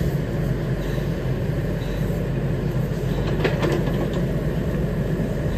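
Diesel engine of an XCMG XE75DA excavator running steadily, with a few sharp knocks about three and a half seconds in.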